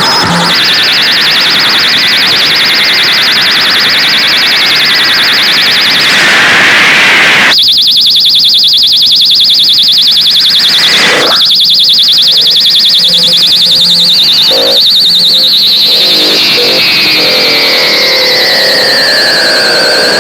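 Harsh noise music: a loud, dense wall of electronic noise with a piercing high-pitched tone held throughout. The texture changes abruptly about seven seconds in, a sharp burst comes about eleven seconds in, and near the end a whistling tone slides down and then back up.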